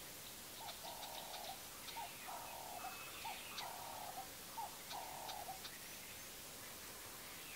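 A bird calling four times, roughly every second and a half, each call a short note followed by a longer one, over faint scattered ticking.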